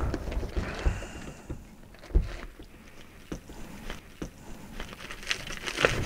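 Handling of papers and a folder on a wooden table: scattered soft clicks and knocks with light rustling.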